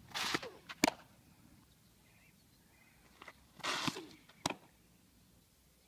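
Two softball pitches. Each is a short rushing noise at the delivery, then about half a second later the sharp pop of the ball into the catcher's mitt; the two pitches come about three and a half seconds apart.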